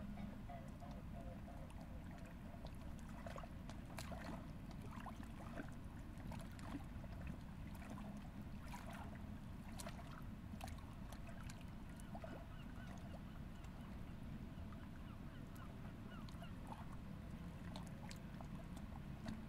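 Faint riverside ambience: a steady low rumble with many short, scattered bird calls and small ticks over it.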